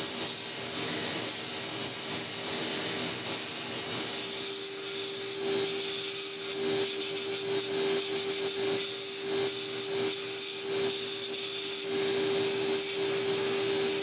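Belt grinder running with a bog oak handle blank being ground against the abrasive belt: a steady motor hum under the rasping hiss of the belt on the wood, which grows louder and rougher about halfway through.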